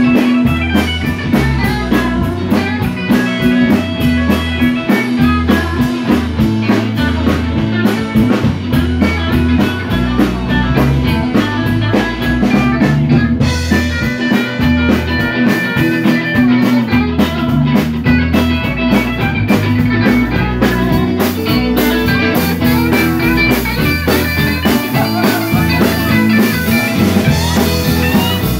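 Live band playing an instrumental passage with no singing: electric guitars over a drum kit with a steady beat.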